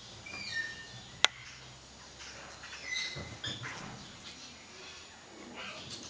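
Puma kittens giving a few short, high, bird-like chirps, near the start and again about three seconds in, with a single sharp click a little over a second in.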